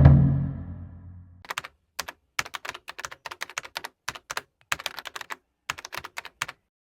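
A single heavy thud at the start that rings down over about a second and a half, then keyboard typing: irregular runs of keystroke clicks.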